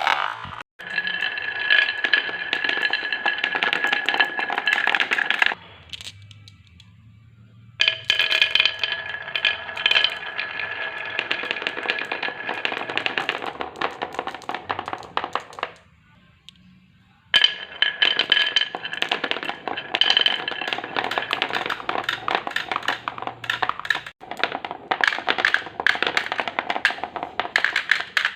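Marbles rolling and clattering down a wooden marble run: a dense stream of clicks with a steady ringing tone over it. It stops abruptly twice, each time for about two seconds, and then starts again.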